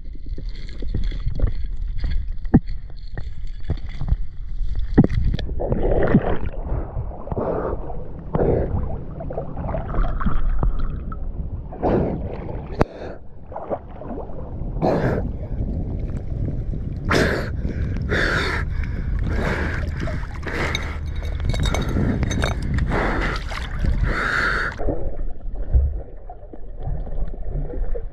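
Water gurgling and splashing around a waterproof camera as it moves underwater and breaks the surface of a river, over a low muffled rumble. The sharper, hissier splashes come in the second half.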